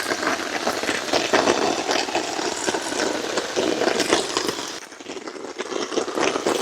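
Heavy rain falling, a dense patter of drops. It eases for a moment near the end, then picks up again.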